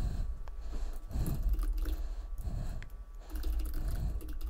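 Typing on a computer keyboard: an irregular run of key clicks over a low steady hum.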